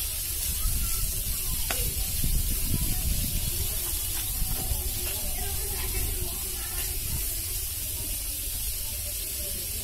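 Sliced onions and green chillies frying in hot oil beside browned baby potatoes: a steady sizzle, with a spatula stirring and scraping the onions in the pan and an occasional click.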